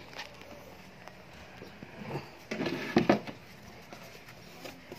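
Rustling and a few soft bumps of a blanket and cardboard box as the dog and a hand move in the whelping box, loudest in a short burst about two and a half to three seconds in.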